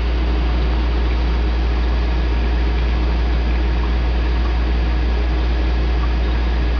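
Oxyhydrogen (HHO) torch flame burning steadily while melting granite: a constant hiss with a strong low rumble underneath.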